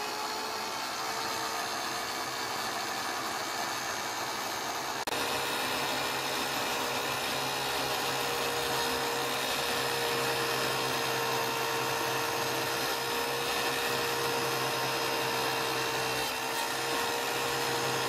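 A c.1957 Bridges-Tool Power electric drill, wired straight to the mains, running with a wire cup brush in its chuck: a steady whine at full speed. About five seconds in, a metal blade is held against the spinning wire brush and the sound gets a little louder.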